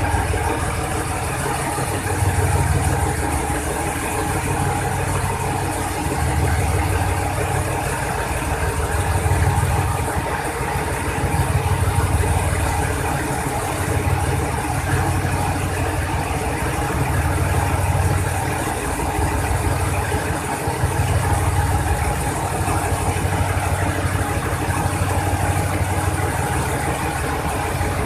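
A diesel train engine idling at a standstill: a steady mechanical hum with a deep throb that swells and fades about every three seconds.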